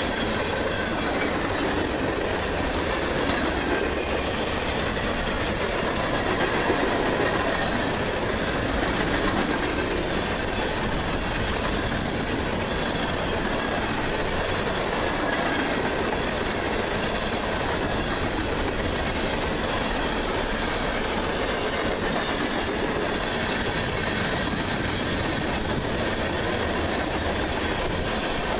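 Freight cars of a long CSX mixed freight train rolling past close by: a steady rumble and rattle of steel wheels on rail, with faint high ringing tones over it.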